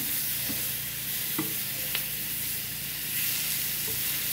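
Corn tortilla pieces and tomato purée sizzling in oil in a small frying pan, stirred with a plastic spatula that taps against the pan a few times.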